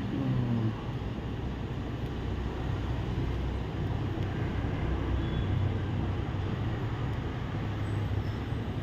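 Steady low hum under an even background hiss: room noise, with no distinct events.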